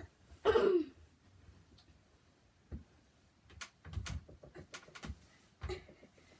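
Thumps and knocks of someone climbing on a loft bed frame, hands on the rail and feet against the side. A loud, short sound falling in pitch about half a second in, then a cluster of knocks between about three and a half and six seconds in.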